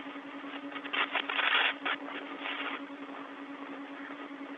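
Open spacewalk radio channel: steady hiss with a constant low hum, and a louder rush of noise about a second in lasting under a second, with a weaker one soon after.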